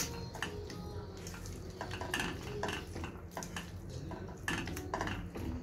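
Wooden spatula stirring a thick, creamy chicken and corn filling in a metal pot, with repeated irregular scrapes and knocks against the pot.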